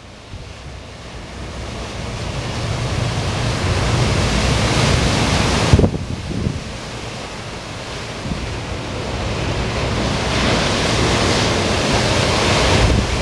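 Storm surf crashing heavily on the beach, mixed with strong wind buffeting the microphone. The noise swells for about five seconds, drops suddenly near six seconds in, then builds again.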